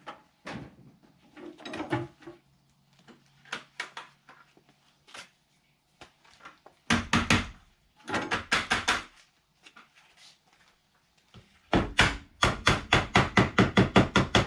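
Hammer blows: a few scattered taps, then quick runs of strikes about halfway through and a fast, even run of about seven blows a second near the end.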